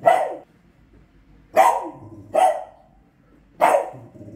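Small dog barking four times, head raised toward the kitchen counter: begging for food she can see up there.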